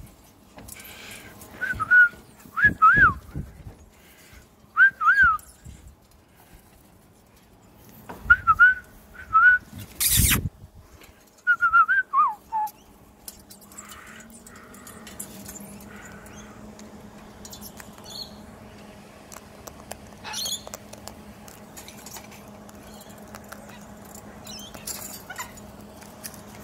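Short whistled notes, each a quick rise and fall, given in little groups over the first dozen seconds, with one loud sudden burst about ten seconds in. The rest is quieter, with a faint steady hum and a few small sounds.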